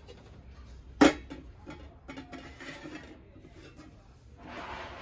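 Brass and copper lidded containers knocked together as they are stacked: one sharp metallic clink about a second in with a short ring, then lighter taps and clinks.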